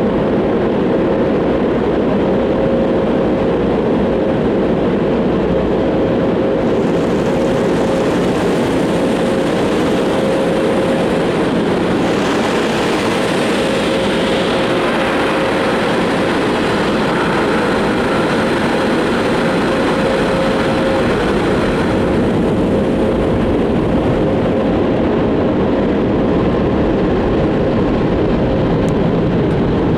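Automatic tunnel car wash running, heard from inside the car: a loud steady wash of machinery and water noise over a constant hum, turning brighter and hissier for about fifteen seconds in the middle.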